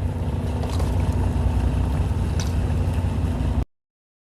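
Fishing boat's engine running with a low, steady rumble and hum, then the sound cuts off suddenly near the end.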